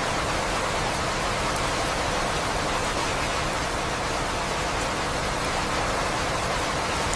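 Steady rain sound for sleeping: an even hiss of falling rain with a few faint drop ticks.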